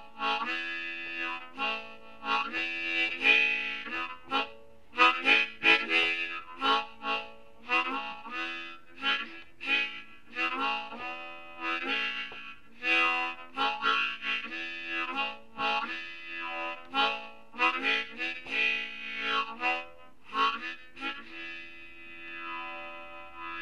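Harmonica played in a loose improvisation, short phrases of single notes and chords, with notes bent and shaken with vibrato. Near the end a held note wavers and slides in pitch.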